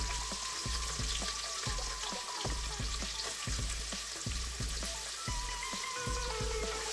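Freshly added chopped onions frying in hot ghee and oil in an aluminium pressure cooker: a steady sizzle with many small pops.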